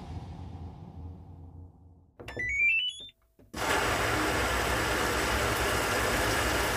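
Edited-in sound effects: a deep rumble dies away over the first two seconds, then a short stepped rising tone plays. After a moment's gap, a steady rushing noise sets in and holds.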